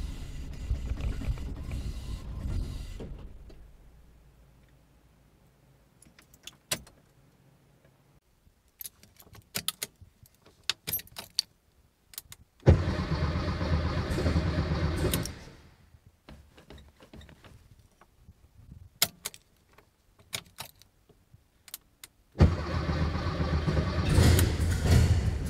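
An engine running fades away over the first three seconds. After a few sharp clicks, a Dodge Charger Daytona race car's engine fires abruptly, runs for about three seconds and cuts out. After more clicks it fires again near the end and keeps running.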